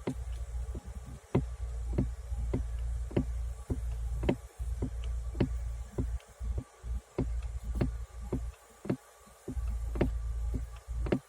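A sharp knock repeating at a steady pace, a little under two a second, over a low rumble.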